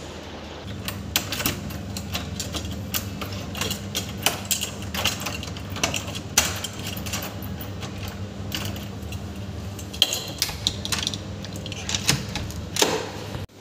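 Repeated clicks, knocks and rattles of a metal lever door handle and lock being worked, over a low steady hum.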